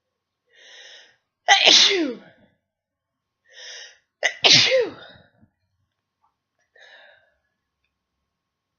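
Two loud sneezes from a person with a head cold, each after a quick breath in, the voice falling in pitch through each sneeze. A short, faint breath follows near the end.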